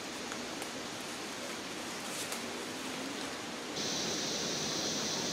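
Steady rushing outdoor noise of rainforest ambience, like water or rain. About four seconds in, a steady high hiss joins and the sound gets a little louder.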